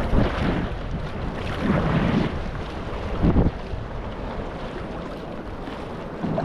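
Wind buffeting the microphone over water splashing and sloshing around a sea kayak, with a few louder splashes.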